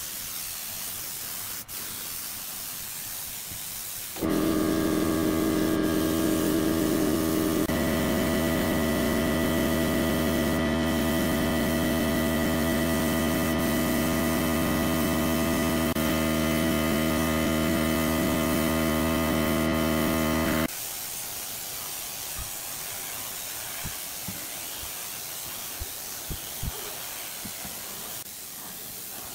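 Gravity-feed air spray gun hissing steadily as it sprays finish onto wood. About four seconds in, a louder steady hum of several held tones comes in over the hiss and cuts off suddenly about two-thirds of the way through.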